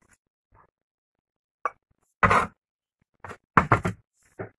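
Small white ceramic bowls clinking and knocking as they are picked up and set down on a tray: a few short knocks, the loudest about two seconds in, then a quick cluster about a second later.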